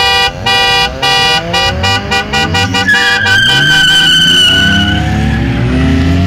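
A car horn honks in quick repeated beeps over revving car engines. About three seconds in, a tyre squeals high and steady for around two seconds, slowly falling in pitch, as a car is swung hard through a turn.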